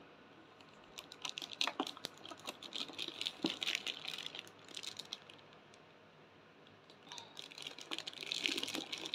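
Clear plastic wrap and packaging tray crinkling and crackling as they are handled. The first few seconds of quick crackles give way to a lull, then another burst near the end.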